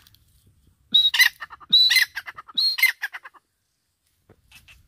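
Grey francolin calling: three loud phrases in quick succession, each opening on a high whistle and breaking into a rapid chatter of notes, then trailing off.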